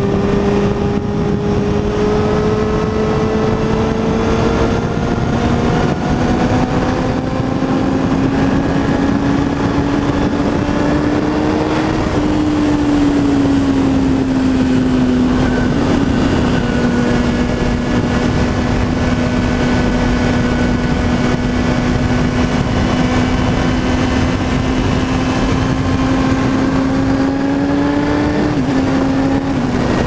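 2006 Kawasaki ZX-10R inline-four running at speed through a Two Brothers M-2 VALE exhaust with the catalytic converter deleted. Its steady engine note climbs slowly for about twelve seconds, dips slightly, holds level, then rises a little and drops near the end, over constant wind rush.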